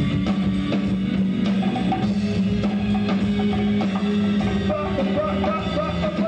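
Live rock band playing an instrumental passage: drum kit and congas keep a steady beat under guitar, with a low note held underneath.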